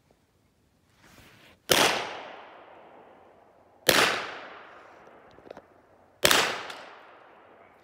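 Three pistol shots from a 9mm Glock 34, spaced about two seconds apart, each followed by a long echo that dies away.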